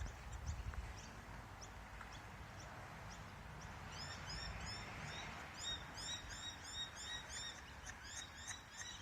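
A small bird chirping in quick runs of short, high, arched notes, starting about four seconds in, over faint outdoor background noise.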